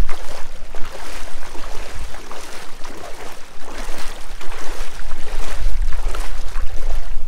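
Wading steps splashing through knee-deep floodwater, a splash with each stride, over a steady low rumble.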